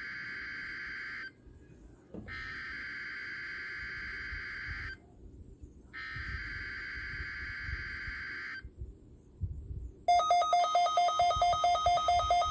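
NOAA Weather Radio SAME header data bursts: three buzzy electronic bursts, each nearly three seconds long with about a second's pause between them. About ten seconds in, a weather alert receiver's alarm starts, a louder, fast-pulsing electronic beeping, set off by the test signal.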